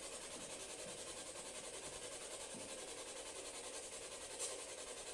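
Spirit box radio scanner sweeping through stations: a steady hiss of static that pulses evenly several times a second, with one brief crackle about four and a half seconds in.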